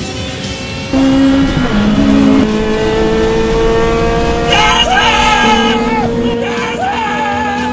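Rock music with a sung vocal line held on long wavering notes, laid over the engine of a Honda Type R race car running at speed. The music gets louder about a second in, and the singing comes in about halfway through.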